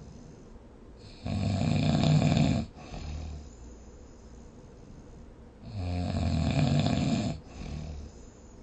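A person snoring: two long snores about four seconds apart, each lasting about a second and a half and followed by a short, softer breath.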